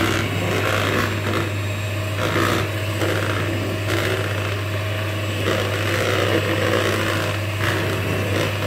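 Nikai electric hand mixer running at a steady speed, its twin beaters churning a thin batter while whipping cream is poured in.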